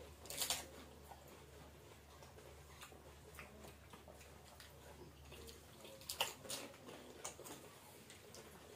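Quiet eating sounds of panipuri: a few short, crisp crunches of the puri shells, about half a second in and again around six seconds in, with small ticks and wet dripping sounds between as the shells are handled and dipped in spiced water.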